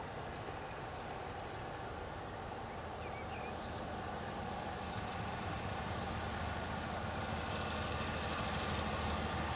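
Heritage diesel locomotive engine working under power, a steady low drone that grows gradually louder as the train approaches.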